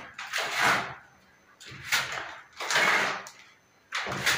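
Wet cement mortar flung by hand onto a concrete ceiling, splattering against it three times: a rough-cast (flash) coat being thrown on.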